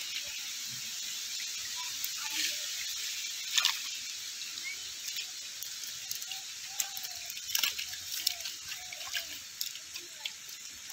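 Wet slaps, drips and trickles of water as live fish are handled in a wet cast net on mud, with a few sharp slaps, the loudest about three and a half seconds in, over a steady hiss.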